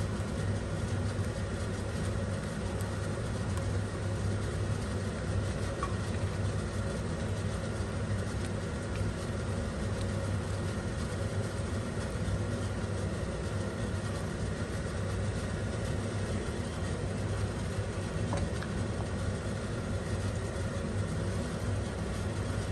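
Steady low mechanical hum with an even rushing noise over it, unchanged throughout, the constant background of a kitchen while a milk and cheese mixture cooks on the stove.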